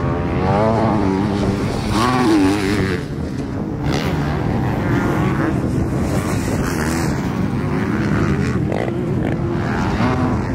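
Motocross dirt bike engines revving, rising and falling in pitch again and again as the riders open and close the throttle through corners and over jumps.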